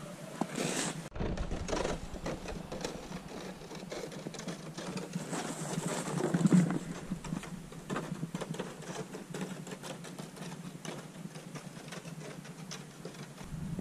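Footsteps crunching through packed snow: a run of many small, irregular crunches.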